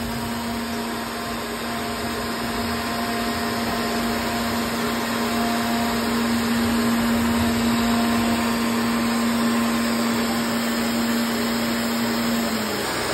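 MultiCam 3000 CNC router running: the spindle whines steadily while milling a relief sign, over the steady rush of the vacuum hold-down. Near the end the spindle's tone drops slightly and fades as the cutter lifts clear of the work.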